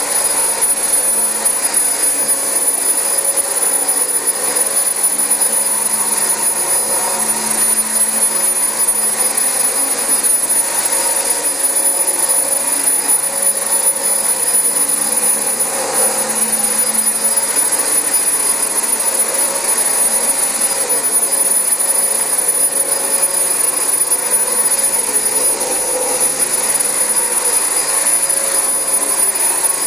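Dyson DC25 upright vacuum cleaner running steadily over carpet: an even rush of air with a constant high-pitched whine.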